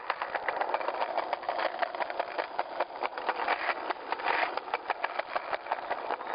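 Continuous rapid rattling and rushing noise from a handheld camera being jostled while carried fast along the street.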